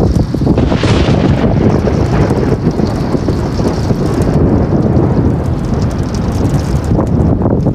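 Thunderstorm wind buffeting a phone's microphone with rain, a loud continuous low rumble.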